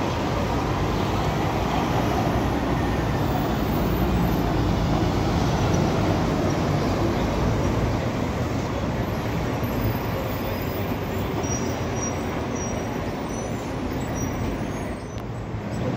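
Street traffic with a city bus driving up and passing, its engine running over steady road noise.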